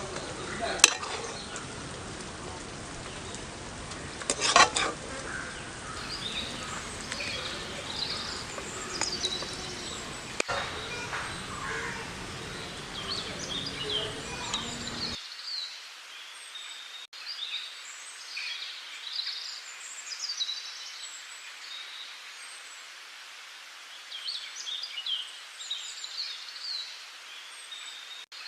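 Small birds chirping with many short calls, over a steady background noise that drops out about halfway, leaving only the chirps. Two sharp knocks, one about a second in and a louder one around four and a half seconds in.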